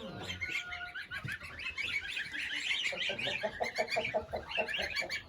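Mixed poultry in farm pens calling: many short high chirps and peeps overlapping throughout. About three seconds in comes a quick run of lower clucking calls, about six a second, lasting some two seconds.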